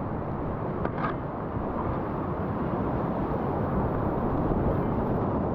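Creek whitewater rushing through a boulder rapid: a steady, full noise of moving water that grows slightly louder.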